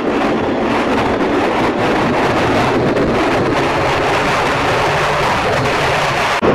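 Wind rushing over the microphone on a moving motorcycle, with the bike's engine running underneath. It breaks off briefly near the end.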